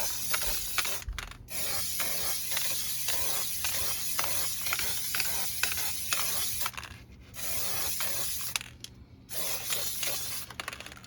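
Aerosol spray adhesive hissing out of a can in several long bursts with brief pauses between them, the glue coming out in strings like silly string.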